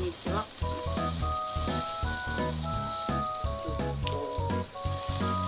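Meat sizzling on a tabletop Korean grill plate, a steady hiss, under background music with a simple melody of held notes and a bass line.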